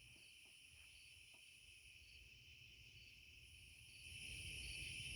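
Faint night-time chorus of crickets and other insects: a steady, high-pitched trilling with soft ticks repeating about twice a second. A low rumble grows a little louder near the end.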